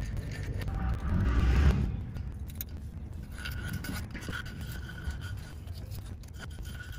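Razor blade scraping and peeling old sealant off the aluminium oil pan sealing flange of a Porsche Boxster 986 engine, loudest about a second and a half in with a low bump of handling.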